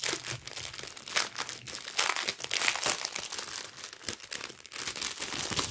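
Strip of small plastic packets of diamond-painting rhinestones crinkling and rustling as it is handled and unfolded, in irregular crackles.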